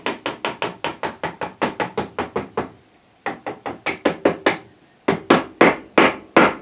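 Mallet tapping a spindle bearing onto the DML305 lathe's headstock shaft, driving it through the removed gear, which has the same bore. Quick repeated taps, about five a second, come in three runs with short pauses; the last few are spaced out and harder.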